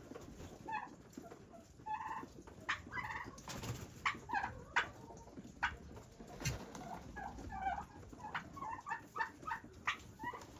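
Domestic fowl clucking and calling in many short, repeated notes, with a few sharp knocks among them.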